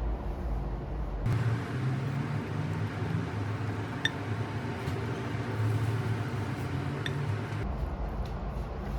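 A couple of light clinks of tableware, about 4 and 7 seconds in, over a steady low kitchen hum.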